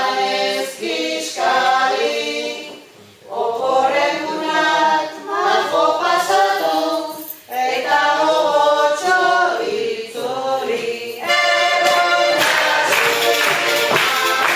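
A group of voices singing together in phrases a few seconds long, with short breaks between them. About eleven seconds in, a fuller, denser burst of music takes over.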